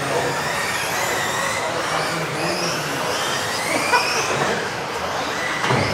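Electric RC off-road buggies racing round an indoor track: high motor whines rising and falling in pitch over a steady rush of tyre and drivetrain noise, echoing in the hall, with an occasional sharp knock.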